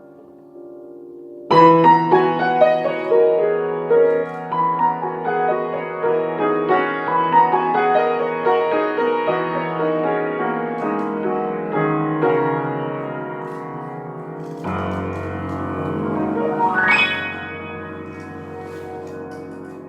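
Piano music: a held chord, then a flowing phrase of notes over sustained bass chords, with a brief rising sweep near the end.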